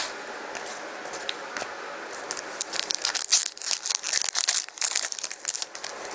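Foil trading-card pack wrapper being crinkled and torn open: a run of irregular sharp crackles starting about two and a half seconds in and lasting about three seconds.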